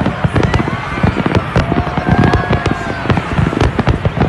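Aerial fireworks display: a dense, rapid barrage of bangs from shells bursting, going on without a break.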